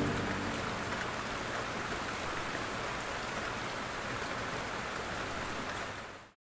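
Steady rain, an even patter, with the last held notes of music dying away in the first half second. The rain fades out just before the end.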